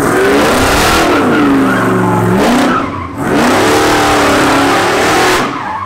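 Car engine revved hard twice, each time climbing and then falling in pitch, under a loud rushing hiss, with a brief drop between the two pulls.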